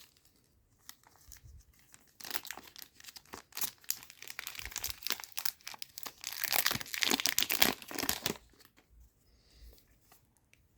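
A trading-card booster pack wrapper being torn open and crinkled by hand, in irregular crackly rustles starting about two seconds in and stopping about two seconds before the end.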